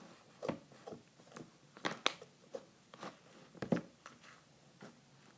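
Very sticky glitter slime being worked and pulled up from the bottom of its container, making irregular small sticky clicks and pops.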